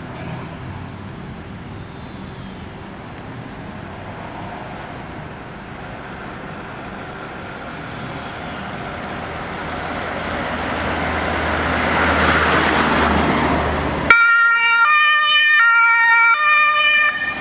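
Mercedes-Benz Sprinter ambulance's engine running and growing louder as it pulls out of the bay. About fourteen seconds in, its German two-tone siren (Martinshorn) switches on, stepping back and forth between a high and a low tone.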